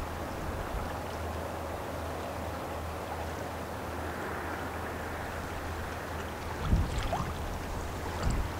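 Steady low drone of a passing lake freighter's engines carried across the river. From about two-thirds of the way in, gusts of wind buffet the microphone.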